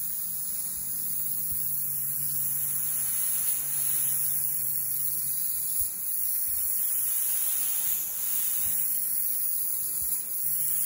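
Airbrush spraying paint: a steady high hiss of air, with a low steady hum underneath that weakens about halfway through.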